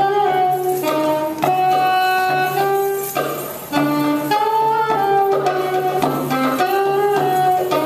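Live band music: a saxophone plays a melody of long held notes over a steady low drone, with a short break between phrases about three seconds in.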